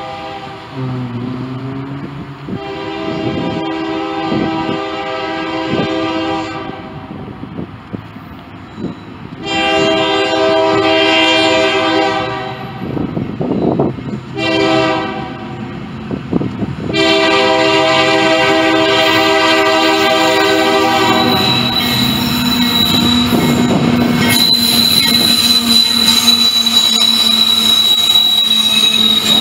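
Diesel freight locomotive's multi-chime air horn sounding the grade-crossing signal as the train approaches: long, long, short, long. The lead Union Pacific and Norfolk Southern locomotives then pass close by with loud engine and wheel noise and a steady high-pitched wheel squeal.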